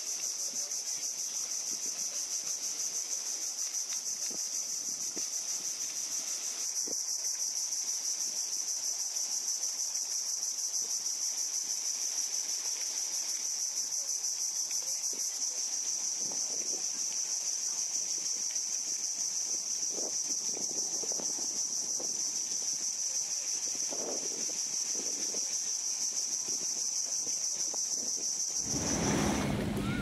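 A steady, high-pitched, rapidly pulsing insect chorus over faint small waves lapping on sand. About a second and a half before the end it cuts off abruptly, giving way to louder surf washing ashore with wind buffeting the microphone.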